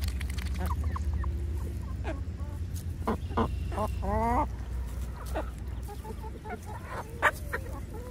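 Backyard poultry calling: scattered short calls, then a cluster about three seconds in that ends in a longer, wavering call. A steady low rumble runs underneath, and there is one sharp click near the end.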